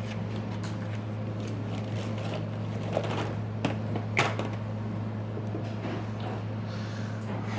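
A steady low electrical hum, with a few small sharp clicks and taps from tools and phone parts being handled on the workbench.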